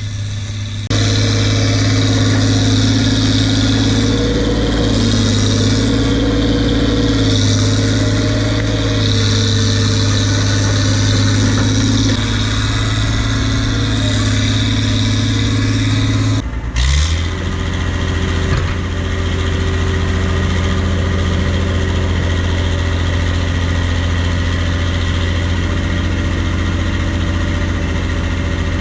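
Bulldozer's diesel engine running steadily and loud, with a short break about two-thirds of the way through, after which it settles at a slightly lower pitch.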